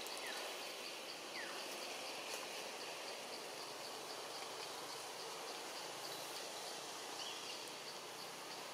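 Steady forest hiss with an insect chirping high and evenly, about three times a second, and a few short, faint gliding calls, one near the start and one about seven seconds in.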